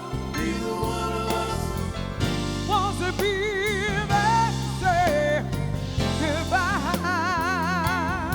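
Soul ballad played live by a band: a singer holds long notes with wide vibrato and sings short runs over steady band accompaniment.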